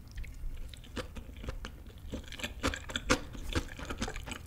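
A person chewing a spoonful of rice burger close to the microphone, with many short, irregular mouth clicks.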